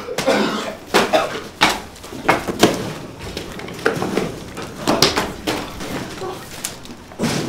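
Knocks and thuds of a scuffle, about a dozen sharp hits at uneven intervals, with short grunts and breaths between them.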